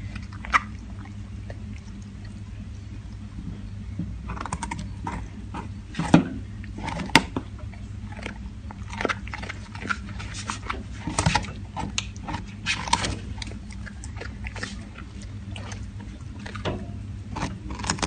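Siberian husky chewing and crunching a raw carrot, with irregular bites and crunches at an uneven pace, some sharper and louder than others.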